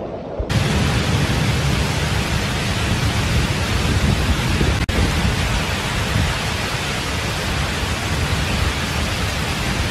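Heavy rainstorm downpour: a loud, steady rushing hiss of driving rain that cuts in abruptly about half a second in, after a brief moment of rushing floodwater.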